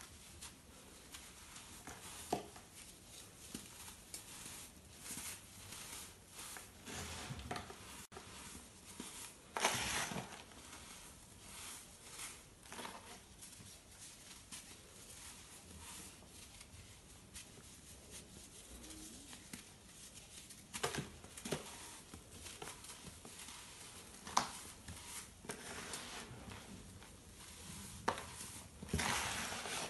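Dry crunching and crackling as hands crumble and crush chunks of crunchy baking soda, with scattered sharper snaps. Near the end, loose powder sifts down through the fingers.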